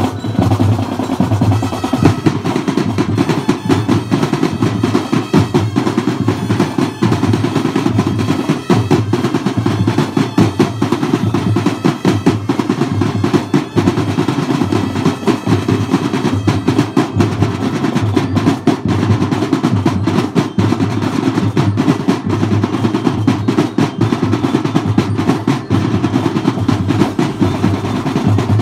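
Marching drumline playing without a break: fast snare drum strokes over a regular bass drum pulse.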